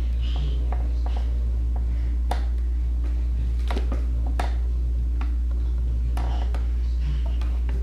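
Steady low hum, with scattered light taps and clicks from a toddler's hands and feet on a plastic ride-on toy.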